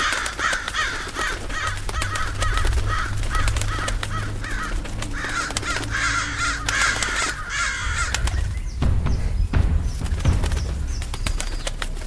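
A flock of crows cawing over and over, their harsh calls crowding one on another, over a low rumble. The cawing dies away about eight seconds in, and a few thumps follow.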